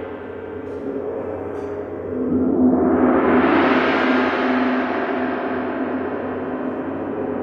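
A gong ringing, swelling into a louder, brighter wash about two seconds in, then slowly dying away, with a steady hum of low tones underneath.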